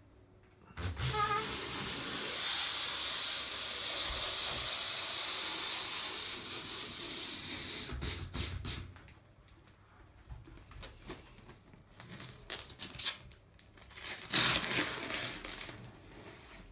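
Adhesive protective film unwinding with a steady hiss as a hand roller applicator is pushed across a stainless steel sheet, with a brief squeak as it starts. After about six seconds it stops with a few knocks, then light handling sounds, and a shorter hissing rasp near the end as the film is torn from the roll.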